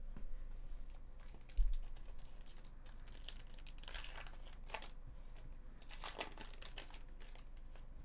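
A baseball card pack's wrapper crinkling and tearing as it is pulled open by hand, in a run of faint, quick crackly rustles, busiest in the middle. A soft low bump about one and a half seconds in.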